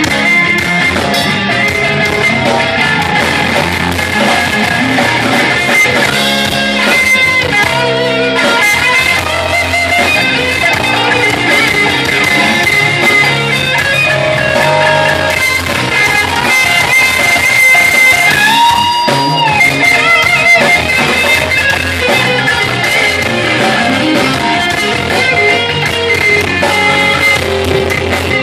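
Live blues-rock band playing an instrumental passage: electric guitar over drums and keyboard. About two-thirds of the way through, a note is bent up and held.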